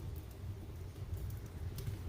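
Fireplace fire crackling: a few faint, sharp pops over a low steady rumble.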